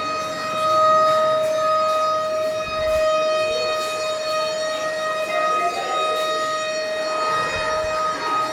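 Emergency alarm siren sounding one steady, unbroken tone during an emergency drill, with faint voices in the background.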